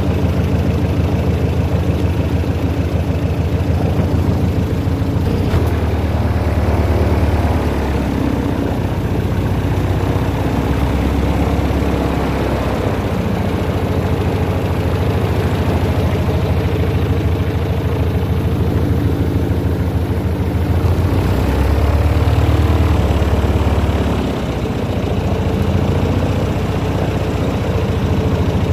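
Airboat engine and propeller running steadily, swelling briefly about three-quarters of the way through and then easing off for a moment.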